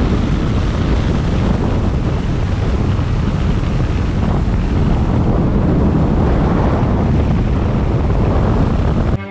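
Wind buffeting the microphone inside a moving car, a loud steady rumble mixed with road noise; it cuts off abruptly right at the end.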